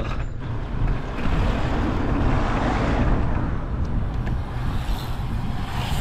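A car approaching from behind and passing close by: its tyre and engine noise swells over a couple of seconds, then fades away.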